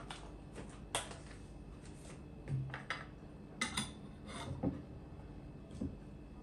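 A glass carafe and a drink carton being handled on a wooden table: a few light clicks, a dull knock as the carton is set down, then sharp clinks and clicks as the plastic cap is fitted on the glass carafe.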